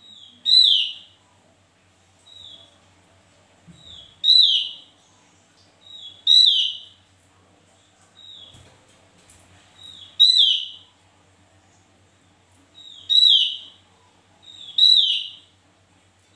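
Small caged songbird calling over and over: each call a short soft note and then a loud falling note, repeated about every two seconds, six loud calls in all.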